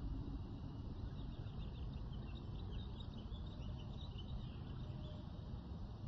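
Prehistoric forest ambience soundscape: a steady low rumble under many quick, high chirps, busiest in the middle.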